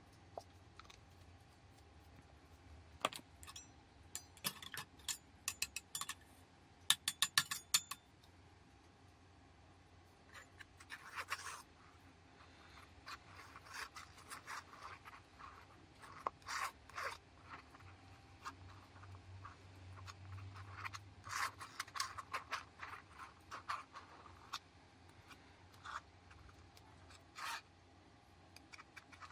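Metal palette knife scraping and smearing thick acrylic paint across a stretched canvas, in repeated strokes. The first several seconds hold a run of sharp clicks and taps.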